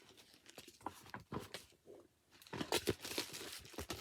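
Handling noise of a vegan-leather bucket bag and its straps: irregular rustling, crinkling and small knocks, busiest about two and a half to three seconds in.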